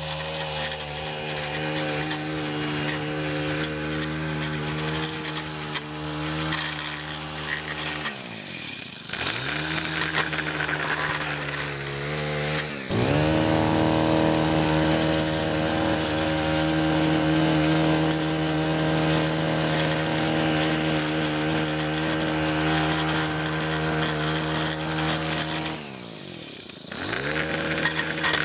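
Gas-powered stick edger's small engine running at full throttle. Twice it is let off to a lower speed and then revved back up: about 8 seconds in, back up around 13 seconds, and again briefly near the end. It is louder after the first rev-up, as the edger runs along the concrete edge.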